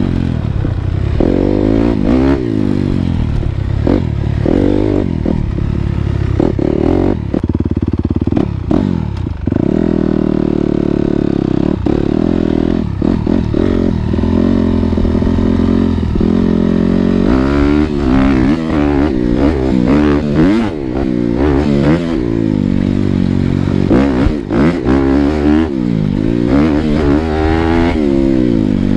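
Dirt bike engine running under load, its pitch rising and falling over and over as the throttle is opened and closed, with scattered knocks and clatter.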